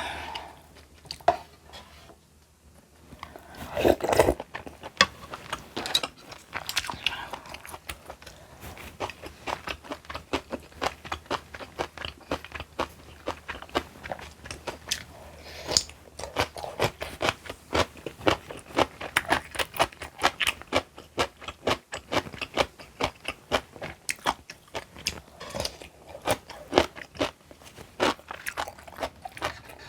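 Close-miked chewing and crunching of crunchy food, many quick irregular crunches with a short pause about two seconds in.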